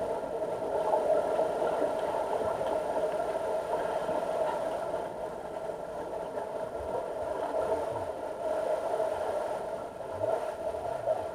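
Underwater ambience of a deep diving pool recorded through the water: a steady mechanical hum with a few faint steady tones above it, dipping briefly near the end.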